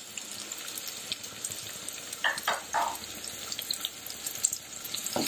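Crushed shallots, garlic and curry leaves sizzling in hot coconut oil in a non-stick pan, a steady hiss with scattered small crackling pops and a few short louder sounds about halfway through.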